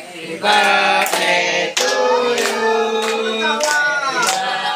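A small group of voices singing together, clapping hands in time at about one and a half claps a second.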